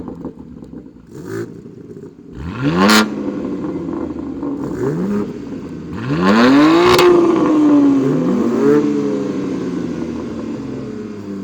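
BMW G80 M3's twin-turbo inline-six running through a Valvetronic cat-back exhaust with a single mid-pipe, warm, revved up and let fall several times. The longest and loudest rev comes a little past the middle, then the engine drops back slowly.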